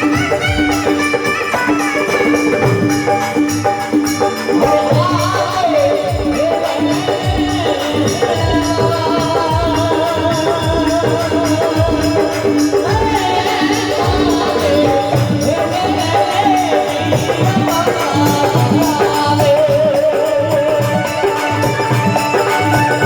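Rajasthani folk music: a wavering melody line over a steady held drone, with a continuous rattling, jingling percussion beat.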